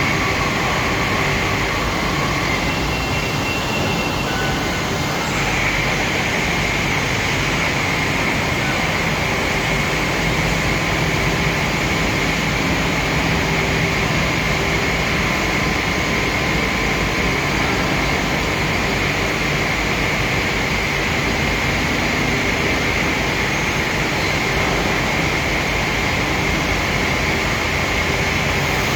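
Machinery running steadily, a constant rushing noise with a few steady whining tones over it, the highest a little stronger from about five seconds in.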